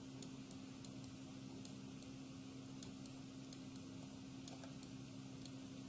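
Quiet room tone with a steady low electrical hum and a few faint, scattered ticks.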